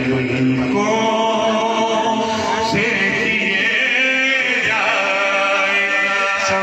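A man singing a naat without instruments, in long, held melodic lines with a wavering voice.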